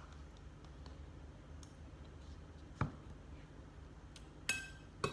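A single dull knock about three seconds in, then near the end a metal spoon clinks against a glass bowl with a short ring. A low steady hum runs underneath.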